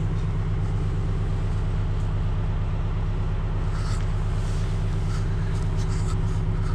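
A steady low mechanical hum, like a motor or engine running, with a few faint rustling crackles between about four and six seconds in.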